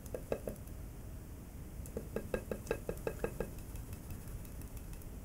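Plastic 3D-printed pyramid shaken on a ceramic plate, knocking against it in quick runs of about five or six knocks a second: a short run at the start, then another about two seconds in. It is being shaken to mix the yeast and hydrogen peroxide inside.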